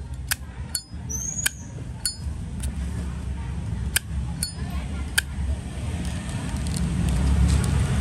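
A Zippo lighter's metal lid being clicked open and snapped shut over and over, about eight sharp metallic clinks with a short ring, most of them in the first five seconds. Low background noise grows louder near the end.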